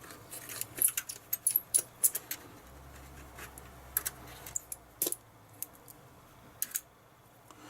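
Small metal clicks and clinks of a screwdriver and tiny screws being worked out of a PS3 Slim's plastic and metal parts, densest in the first two seconds and sparser after.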